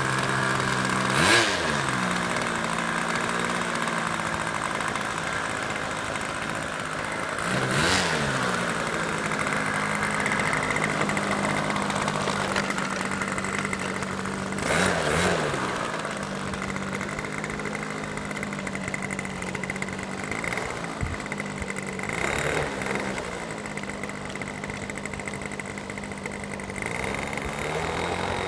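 Engine of a small fixed-wing airplane running steadily, its pitch briefly dipping and coming back up about five times, each time with a short louder burst.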